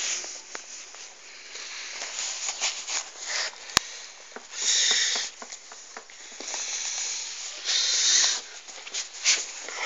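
Puppy sniffing and snuffling right at the microphone: irregular hissing breaths, two longer ones about five and eight seconds in, with one sharp click near four seconds.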